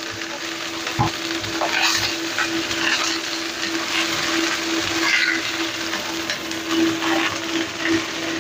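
Fish and spring onions sizzling in hot oil in a wok, with scattered scrapes and taps as a slotted plastic spatula moves them around the pan. A steady low hum runs underneath.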